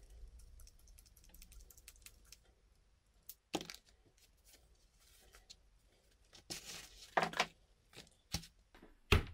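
Hand work on an RC car's center differential: light ticking of small screws and tools as the diff case halves are fastened together, then a few sharper clacks of hard parts set down and several short scraping rustles.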